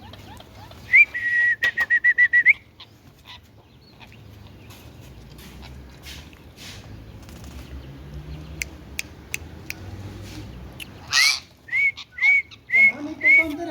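Indian ringneck parrot whistling: a rapid run of about ten sharp whistled notes about a second in, then after a quiet stretch a loud call followed by a string of short rising whistled chirps, about two or three a second, near the end.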